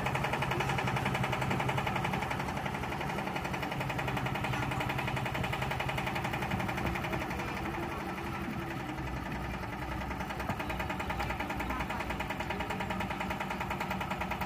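Yanmar TS single-cylinder diesel engine driving a Hiab 140 crane, running steadily with a fast, even knock.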